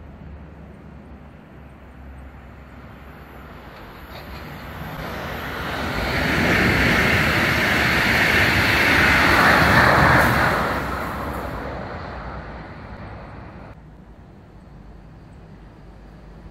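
Regional train of red double-deck coaches and a red locomotive passing: the rolling noise of wheels on rails swells over a couple of seconds, holds for about five seconds, then fades away.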